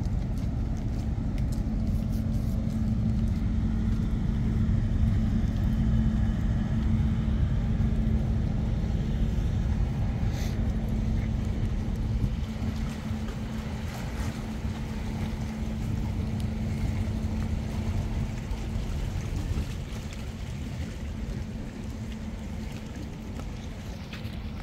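Steady low mechanical hum with a constant drone note over a deep rumble, growing gradually fainter over the second half.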